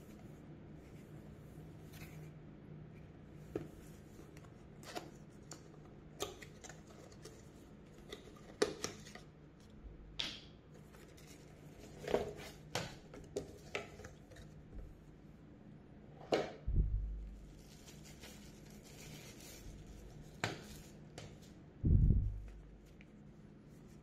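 Cardboard packaging of a portable desk fan being opened and handled: scattered scrapes, rustles and light taps of box and paper, with two dull thumps, one past the middle and a louder one near the end. A faint steady low hum sits underneath.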